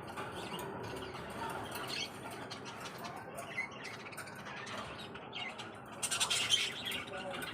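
Small pet parrots chirping and squawking in a breeding cage, with a louder burst of calling about six seconds in.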